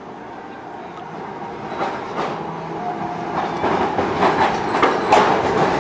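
Electric streetcar rolling past close by, growing louder as it nears, its wheels clicking and clattering on the rails in an uneven series of sharp clacks.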